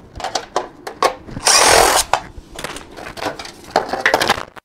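Cordless drill running for about half a second, about a second and a half in, backing a screw out of a washing machine's plastic control panel. Clicks and clatter of the plastic panel being handled come before and after it.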